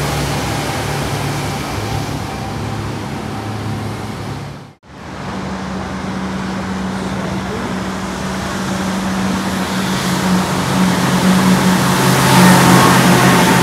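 Road traffic: a steady hum of car engines and tyre noise, which drops out for a moment about five seconds in and grows louder near the end.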